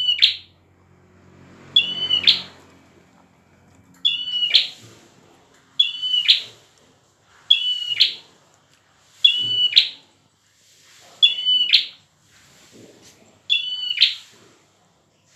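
A prenjak (prinia) singing vigorously, repeating a short, sharp, high call phrase eight times, about every two seconds.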